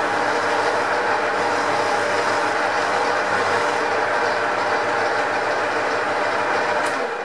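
Metal lathe running steadily while its tool takes a facing cut across the end of a steel bar, a steady mechanical noise with a constant whine. It is switched off near the end and runs down.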